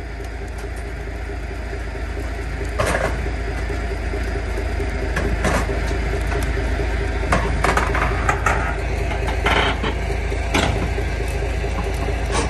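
A truck engine runs steadily under load as it drags a seized excavator through scrub. It is overlaid by several sharp cracks and crunches, about a second apart, as the machine ploughs through brush and bends over a metal post and frame.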